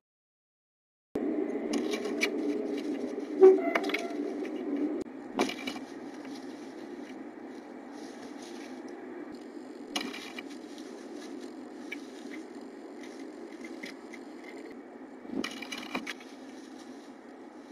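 Silent for about a second, then a blue tit moving about inside a wooden nest box: sharp knocks and scrapes of its feet and wings against the wood and the nest material, the loudest about three and a half seconds in, over a steady hiss.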